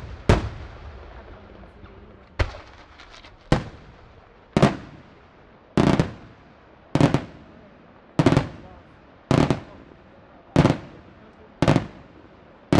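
Aerial firework shells bursting in a steady sequence, about one sharp boom a second, each trailing off in a short echo.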